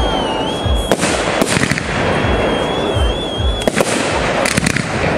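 Fireworks display: a dense run of bangs and deep booms from bursting shells over constant crackling. High wavering whistles from whistling fireworks come in, one held from about two seconds in for over a second.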